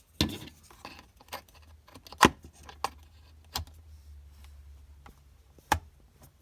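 Irregular sharp clicks and knocks, about five, the loudest a little over two seconds in, from hands handling a Skyloong SK64 mechanical keyboard.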